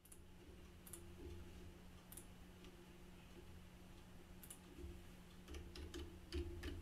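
Faint computer mouse clicks and keyboard keystrokes while a file is saved: scattered single clicks, then a quicker run of key taps after about five seconds, over a low steady electrical hum.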